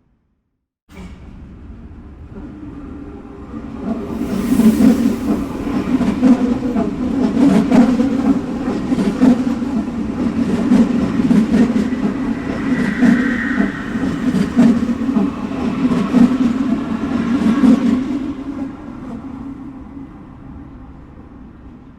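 Subway train running on the tracks: a rumble that starts after a second of silence and builds over a few seconds. It holds loud with a clatter of wheel clacks, then fades away over the last few seconds.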